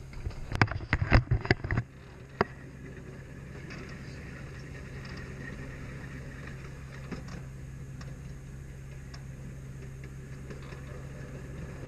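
A flurry of knocks and bumps from the camera being handled during the first two seconds, then the steady low running hum of a kiddie amusement-park train moving along its track, with a few faint clicks.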